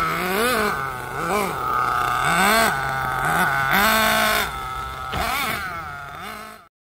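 Small engine of a Kyosho Mad Force RC monster truck being blipped: it holds a steady idle and rises in pitch and falls back about six times as the throttle is worked, then cuts off suddenly near the end.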